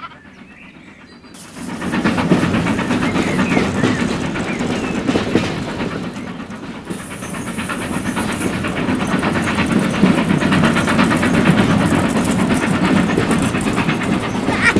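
A train running on rails, starting about a second and a half in: a fast, even clatter of wheels with a rush of steam hiss around the seven-second mark.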